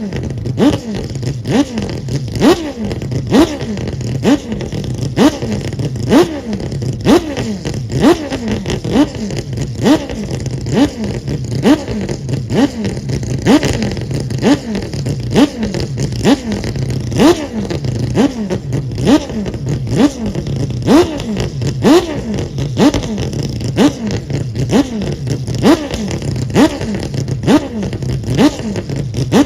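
Mazda 787B's four-rotor rotary race engine being blipped over and over: quick, evenly spaced rises and falls in revs, about one and a half a second, over a steady idle.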